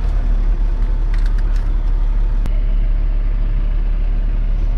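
Land Rover Discovery 4 moving slowly, with a steady low engine and road rumble heard from inside the cabin. A faint click comes about halfway through.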